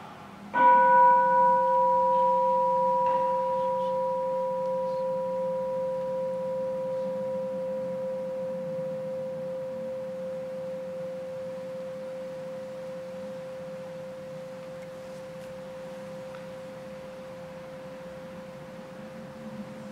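A consecration bell struck once as the host is elevated, its clear tone ringing on and slowly fading away.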